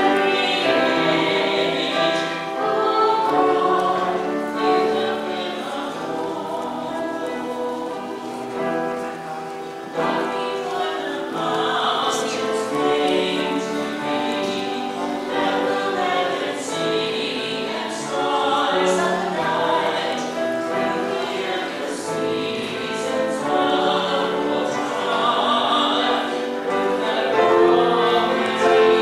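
A choir singing a hymn, with long held notes.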